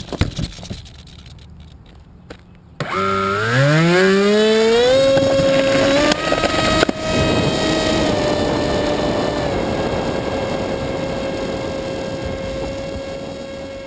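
A few faint knocks, then about three seconds in the Dynam Hawk Sky's electric motor and propeller spin up with a rising whine and settle into a steady high-throttle run with a rushing noise beneath, slowly fading.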